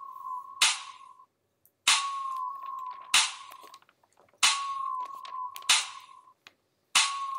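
Sparse backing-track beat: sharp snap-like hits about every 1.3 seconds over a short wavering tone that comes back every two and a half seconds, in a small room.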